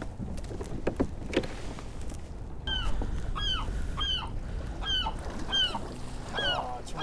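A bird calling in a fast series of short, arching calls, about two a second, starting nearly three seconds in, over a low steady rumble.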